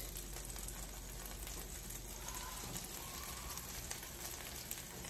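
Butter sizzling steadily in a non-stick skillet as custard-soaked croissant bread slices are laid in to fry.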